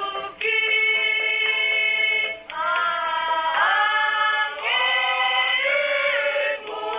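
Mixed choir singing an Indonesian ethnic choral arrangement in harmony, a series of long held chords that change every second or so. The singing breaks off briefly about a third of a second in and again about two and a half seconds in.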